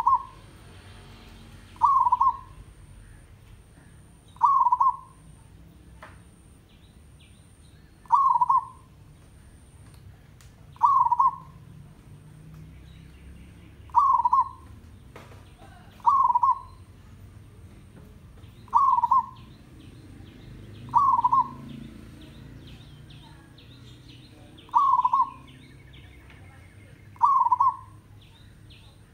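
Zebra dove cooing: about eleven short phrases, one every two to three seconds, with faint chirps of other small birds in the background in the second half.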